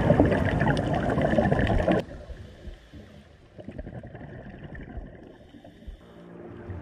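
Muffled underwater sound picked up by the camera: gurgling water noise with many small clicks, loud for the first two seconds and then dropping suddenly to a faint wash.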